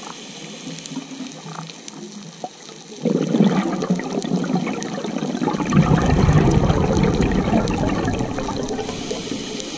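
Scuba diver's exhaled regulator bubbles, recorded underwater: a loud bubbling rush that starts suddenly about three seconds in and lasts several seconds, deepest and strongest around the middle, over a faint crackle of clicks.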